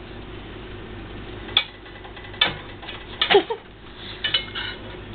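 A metal spoon clicking and scraping against a cast iron skillet a few times as rendered pig fat is spooned into the pan, over a steady low hum.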